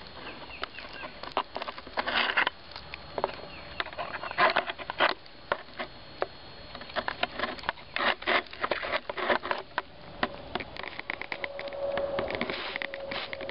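Irregular crackling and rustling of squash leaves and handheld camera handling close to the microphone, with an insect buzzing steadily near the end.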